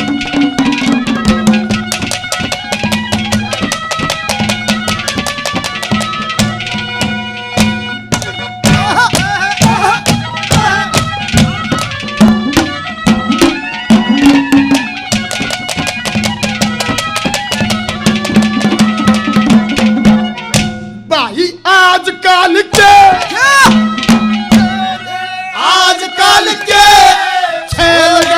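Haryanvi ragni folk music without words: fast hand-drum strokes under a steady drone and a held melody. In the last several seconds a wavering, gliding melodic line comes in.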